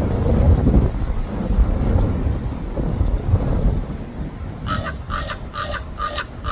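Low rumble on the microphone, then about two-thirds in a common raven gives five quick croaks in a row.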